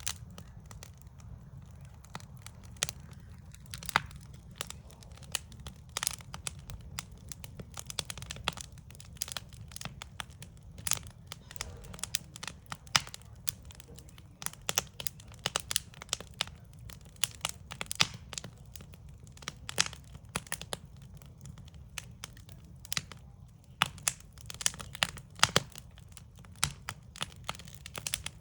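Backyard wood campfire crackling: irregular sharp pops and snaps, several a second, over a steady low rumble.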